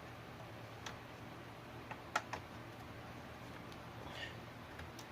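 A few faint, sharp clicks and taps from small computer hardware being handled as a VGA connector piece is fitted to a video card, over a low steady hum.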